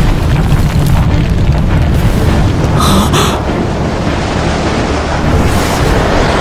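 Loud, steady, rumbling rush of noise with a heavy low end: an anime sound effect of a surging burst of power and swirling wind. A short, brighter cry-like sound rises out of it about three seconds in.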